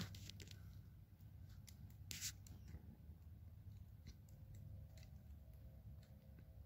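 Near silence in quiet woods: a faint low rumble with scattered soft clicks and rustles, one slightly louder click about two seconds in.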